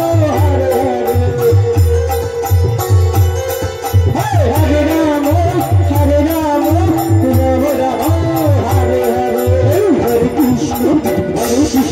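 Bengali kirtan music: a khol drum beats a steady repeating rhythm with bright hand-cymbal strokes, under a melody with wavering, sliding pitch.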